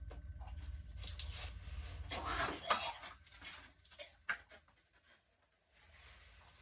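Small household items being handled: rustling and light clicks and knocks, with a louder rustle about two to three seconds in, over a low hum that stops near the end.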